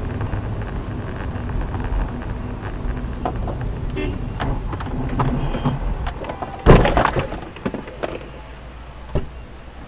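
Steady road and engine noise inside a moving car, then about two-thirds of the way through a single loud bang as the car collides with a white van alongside. Running noise is quieter afterwards, with a couple of small knocks.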